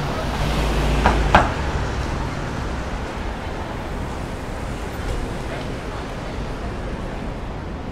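City street traffic: a vehicle engine's low hum for the first second and a half, with two sharp knocks a little after a second in, then a steady traffic rumble.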